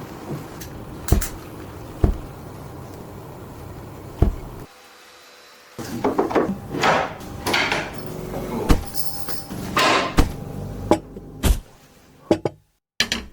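Handling noises from unpacking and assembling a wooden cat tree: several sharp knocks of wooden parts, then irregular scraping and rustling with more knocks and clicks.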